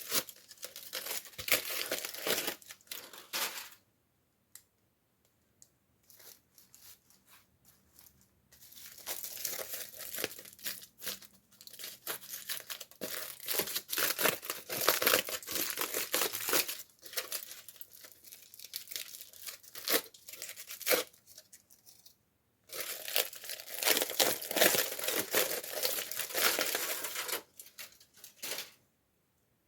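Toy packaging being torn open and crinkled by hand, in several long stretches of crackling with pauses between them.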